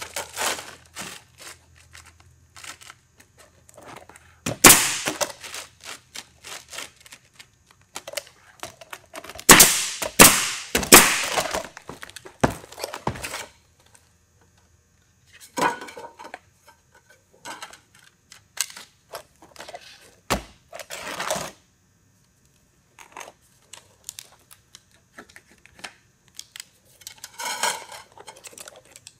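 Pneumatic roofing nailer firing into asphalt shingles: once about five seconds in, three shots in quick succession around ten seconds, and once more near twenty seconds. Between the shots come quieter scrapes and rustles of shingles and metal step flashing being handled and set in place.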